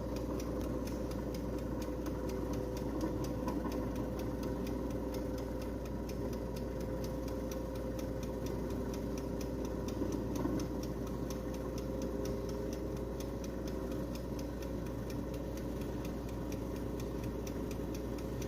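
Electric air fryer running with a steady hum and a fast, regular ticking of about five ticks a second, the unwanted noise the appliance is making.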